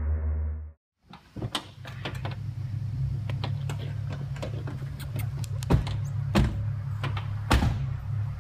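Doors of a Honda CR-V being opened and shut as people get out: a string of clicks and knocks, the loudest slams in the second half, over a steady low hum.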